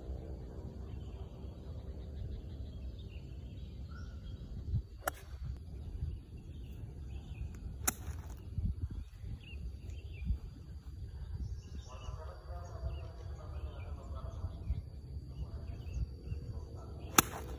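Golf iron striking the ball: three sharp cracks, about five seconds in, near eight seconds, and the loudest near the end, over steady low outdoor background noise with faint bird chirps.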